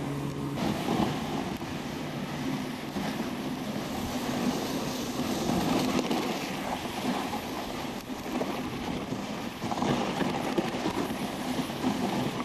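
Dog sled moving along a packed snow trail behind a running dog team: a steady, rough rushing and scraping from the runners on the snow, which starts about half a second in.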